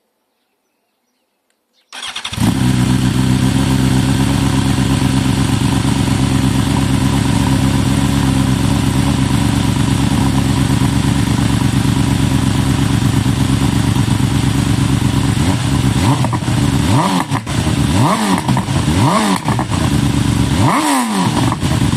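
BMW S1000RR inline-four engine starting about two seconds in and idling steadily, then revved in several quick throttle blips over the last six seconds.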